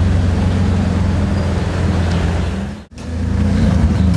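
9ff-tuned Porsche 911 twin-turbo flat-six running at low revs with a steady low note as the car rolls slowly. Nearly three seconds in, the sound cuts out for an instant and comes back.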